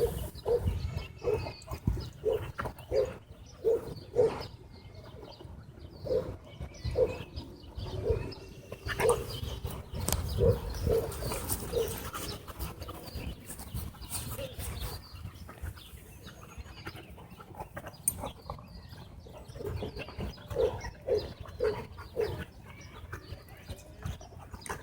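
A dog making short, repeated grunting woofs in runs of several, about two a second, with a low rumble underneath.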